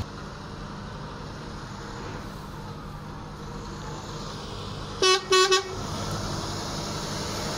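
Diesel lorry engine running steadily, with a quick series of short, loud horn toots about five seconds in.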